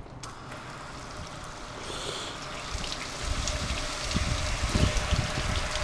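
Garden hose spray hitting a Char-Broil gas grill, water splattering on its metal lid and control panel. It gets louder about three seconds in.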